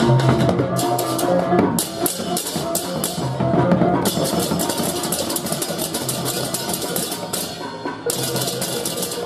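Balinese baleganjur gamelan playing: drums and low ringing gongs under fast clashing cymbals. The cymbals stop and start again several times.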